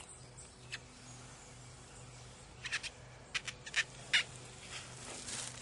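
Fork working through ramen noodles in a foam instant-noodle cup: a scatter of short squeaks and clicks against the cup, bunched in the middle.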